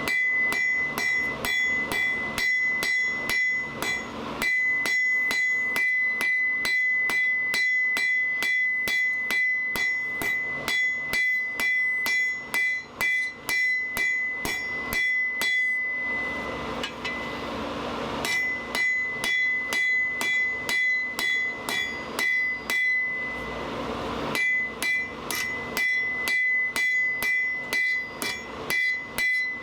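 Blacksmith's hammer striking hot steel over the anvil horn in quick, even blows, about three a second, drawing the stock out thinner; the anvil rings at a steady high pitch between strikes. The hammering stops twice briefly, about halfway through and again some seconds later, leaving a steady hiss.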